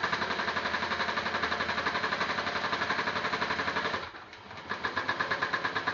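Sewing machine stitching a Velcro strip onto soft-top vinyl: a fast, even run of stitches that stops briefly about four seconds in, then starts again.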